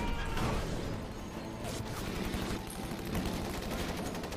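Rapid gunfire, many shots in quick succession with no break.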